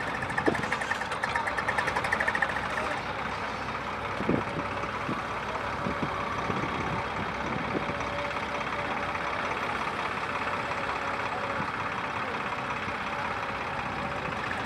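Diesel engines of an excavator and trucks running steadily while sand is loaded, with a few sharp knocks about half a second in and about four seconds in.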